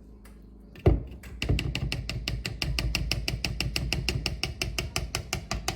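A single knock, then a fast, even clatter of a utensil against a mixing bowl, about nine clicks a second, as peanut butter is mixed into dog-treat dough.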